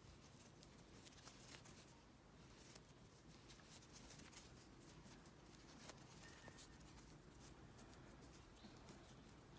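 Near silence with faint, scattered small clicks and rustles of a crochet hook working yarn.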